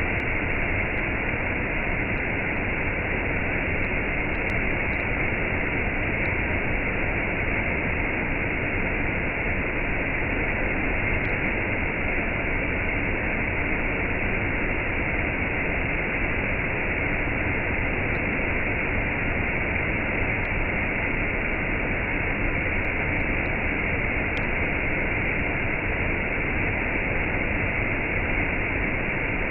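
Waterfall with a cascade, water rushing in a steady, unbroken roar.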